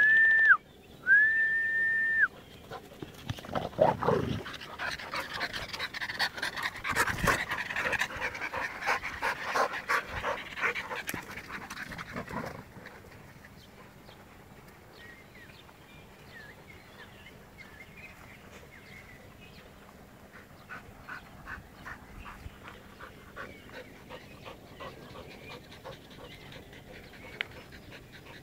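Two short, steady whistle notes at the start, then dogs panting hard after running. The panting is loud until about twelve seconds in, then fainter and quick.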